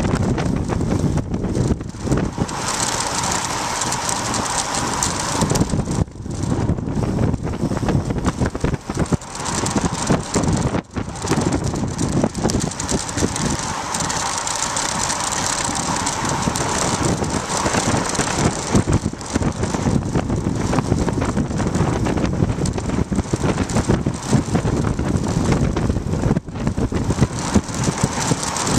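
Wind rushing over the microphone of a bicycle-mounted camera on a fast road-bike descent, with tyre and road noise and the knocking of a bouncing homemade mount. A higher whir swells up twice and fades.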